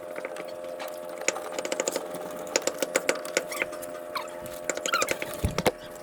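Sped-up sound of plumbing work: quick clicks and knocks of tools and pipe fittings over a steady hum, with a louder knock near the end.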